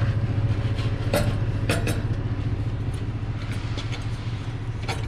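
A machine running with a steady low hum, with a few light metallic clinks of exhaust pipe and clamps being worked into place: about a second in, near two seconds and near the end.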